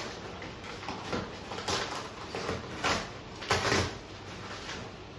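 Brown paper packaging rustling and crinkling as a parcel is unwrapped and handled, in several short irregular spells, the loudest right at the start and about three and a half seconds in.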